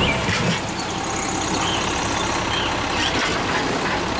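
Automated side-loading garbage truck's diesel engine running steadily while its hydraulic arm lifts a wheeled cart, with a few faint bird chirps.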